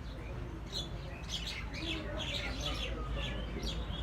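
Small birds chirping and twittering in quick overlapping bursts, over a steady low rumble.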